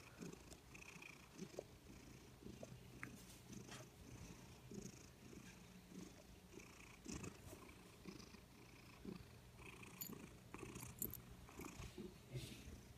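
Maine Coon–Manx cat purring softly and steadily, a low pulsing rumble that repeats evenly.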